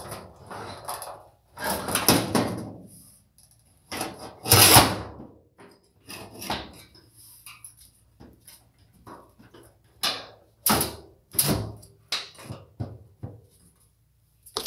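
Irregular knocks and clatter: a couple of longer scraping or rustling noises in the first few seconds, the loudest about four and a half seconds in, then a quick run of sharp knocks near the end.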